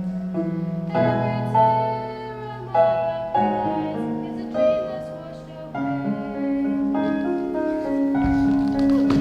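Piano playing a slow stage-ballad accompaniment, held chords changing every half second to a second, with the backing growing fuller near the end.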